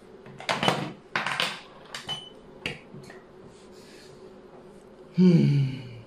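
Xiangqi pieces knocking and clacking onto the board as moves are played: a cluster of sharp strikes in the first three seconds. Near the end a man gives a short voiced exclamation that falls in pitch, the loudest sound here.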